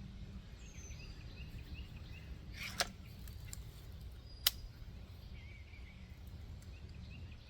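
Two short sharp clicks about a second and a half apart, typical of the air rifle being readied between shots, over faint outdoor background with a few soft bird chirps.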